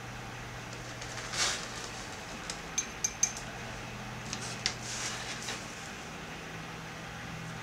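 A calligraphy pen clinks against an ink pot: four quick, bright clinks in under a second near the middle, with a couple more a little later. Soft scratches of the pen on paper come before and after. A steady low hum runs underneath.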